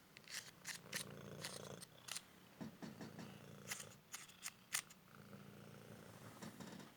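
Cymric cat purring steadily, with a run of sharp clicks and crackles over the first five seconds.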